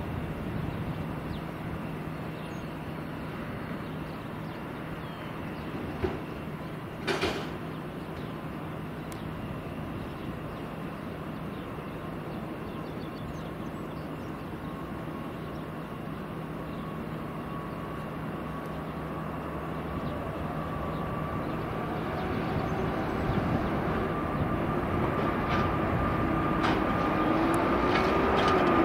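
Jet airliner engines: a steady rumble with a thin high whine that grows steadily louder over the last several seconds. A sharp click about seven seconds in.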